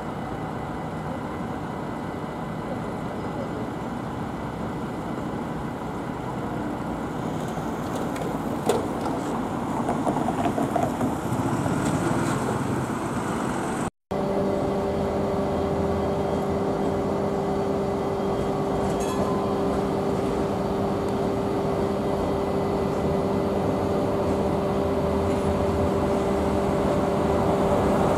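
Utrecht SIG light-rail trams and road traffic. A tram passes over street track amid traffic noise. After a cut about halfway through, a steady hum of a few even tones runs while another tram draws near, getting louder toward the end.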